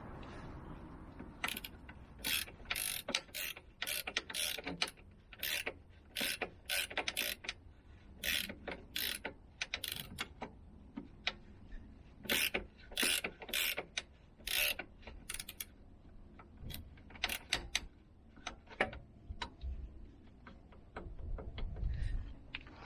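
Hand ratchet wrench clicking in short, irregular bursts as a suspension-arm bolt is turned.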